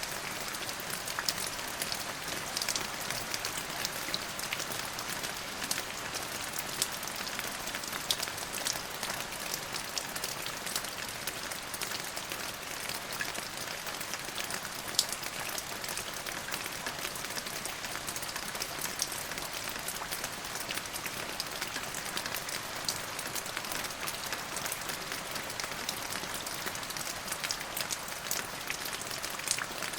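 Steady rain falling on a surface: a continuous hiss with many individual drops pattering sharply through it.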